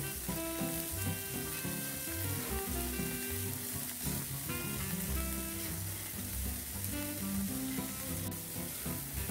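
Margarine melting and sizzling on a hot sizzling plate as spoonfuls are dropped onto it, under steady background music.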